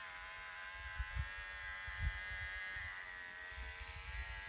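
Electric hair clippers buzzing steadily while cutting hair, the pitch sagging slightly a couple of times as the blades bite. A few soft low thumps sound underneath.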